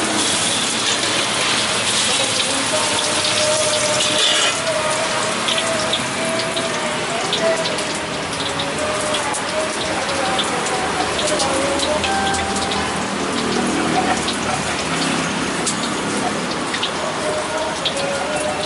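Oil sizzling and crackling steadily in a wok as tofu pieces fry.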